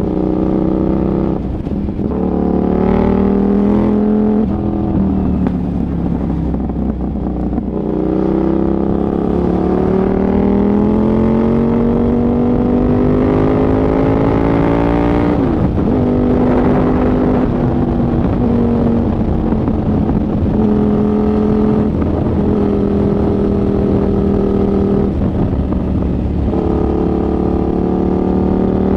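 KTM 990 Super Duke's V-twin engine running under way. Its note rises steadily as the bike pulls through a gear, drops sharply at a gear change about halfway through, then holds a fairly steady pitch while cruising.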